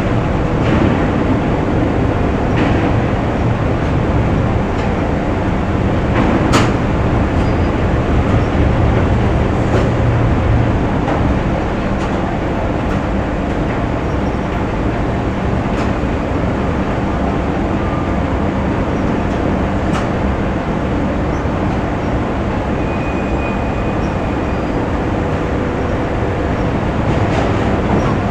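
Factory machinery ambience: a steady, dense rumble and hum of running machines, with a few sharp metallic clanks, the loudest about six seconds in.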